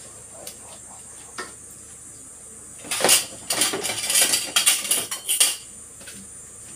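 Two light taps of a wooden spatula on a metal frying pan, then about two and a half seconds of loud clattering and scraping of pots, pans and utensils starting about three seconds in.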